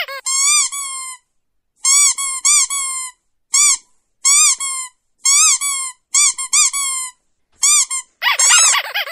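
A dog whining: a run of short, high-pitched whines that rise and fall, coming in quick clusters with gaps between and crowding together near the end.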